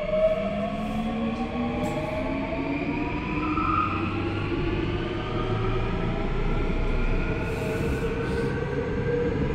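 Seoul Subway Line 9 electric train heard from inside the passenger car as it accelerates: the traction motors whine in several rising tones over the steady rumble of wheels on the rails.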